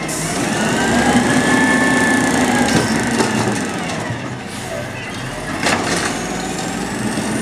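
Automated side-loader garbage truck running its hydraulic lift arm: the engine runs steadily under a pump whine that rises and falls as the arm lowers the emptied cart to the curb. A sharp clatter comes near the end as the arm reaches the next cart, and a high whine rises after it.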